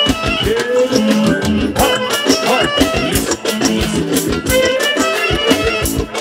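Live dance music: a clarinet plays a fast, ornamented melody with sliding notes over a driving drum beat and band accompaniment.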